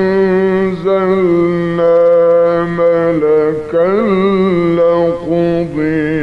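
A man's voice chanting Quran recitation in the melodic tajweed style, drawing out long held notes that bend and waver in pitch with ornamented turns.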